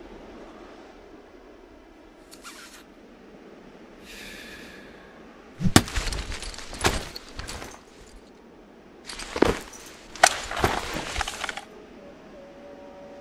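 A faint click, a brief ringing tone, then two bursts of sharp cracks and crashes, the first starting about six seconds in and the second about nine seconds in.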